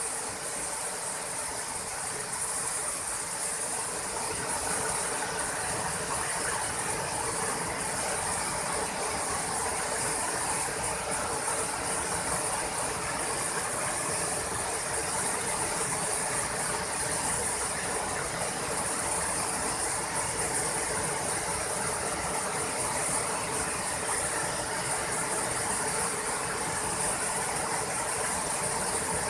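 Waterfall: water pouring steadily over a wide, stepped rock ledge into a pool, a constant rushing hiss with a strong high-pitched edge.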